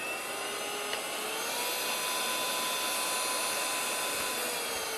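Handheld cordless vacuum running with a steady whine; a click about a second in is followed by its pitch rising as it is switched up to the high mode. Near the end the pitch falls as the motor winds down.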